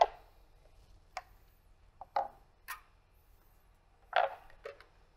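Short sharp clicks and knocks of clear plastic chocolate moulds being handled and set down on a granite worktop, about half a dozen in all: the loudest right at the start and a quick cluster about four seconds in.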